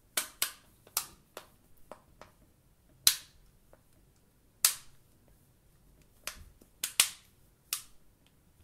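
Plastic back cover of a Samsung Galaxy S4 Active snapping into place as thumbs press around the phone's edge: about a dozen sharp clicks at uneven intervals, the loudest about three seconds and about five seconds in.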